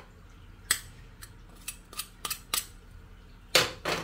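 Garlic cloves being crushed: a string of about eight sharp, irregular clicks and snaps, the loudest two close together near the end.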